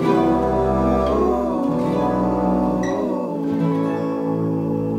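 Acoustic guitars playing finger-picked folk music, a full chord with a deep bass struck at the start and the notes ringing on. The music eases off slightly near the end.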